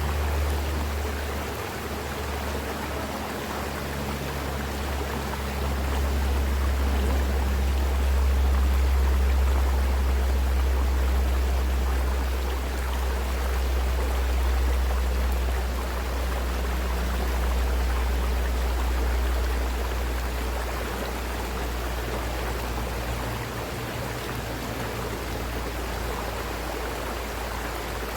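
A mountain river rushing steadily, with a deep low rumble under the water noise that swells and eases over several seconds.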